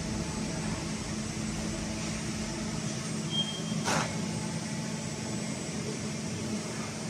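Steady hum of assembly-line machinery and cabinet cooling fans in a factory hall. About three and a half seconds in there is a brief high beep, followed by a single sharp click.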